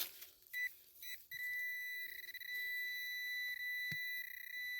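Handheld metal-detecting pinpointer giving two short beeps, then a steady high tone that swells slightly now and then: the probe is held close to metal, a target still in the hole. A single sharp click comes near the end.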